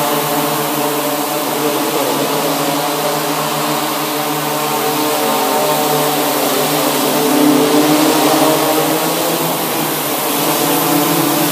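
DJI Inspire quadcopter's motors and propellers buzzing steadily as it flies low, the buzz swelling a little about seven seconds in.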